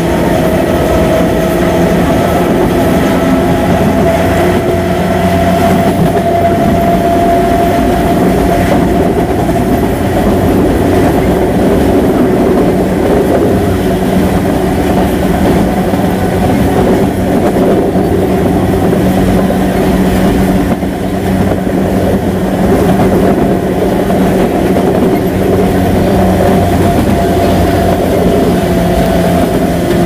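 CPTM Series 2000 electric multiple unit's traction equipment running: a steady electric whine made of several tones, whose pitch drifts slightly up and down, over train running noise.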